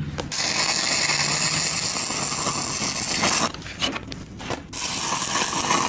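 Stick-welding arc from a 7018 electrode crackling and hissing as tack welds are laid on the joint of a 2-inch schedule 160 pipe. The first tack burns for about three seconds and breaks off; after about a second the arc strikes again for the next tack.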